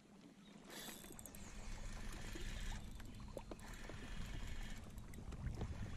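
Small waves lapping and slapping against a plastic kayak hull, with wind rumbling on the microphone; the sound rises in level over the first two seconds.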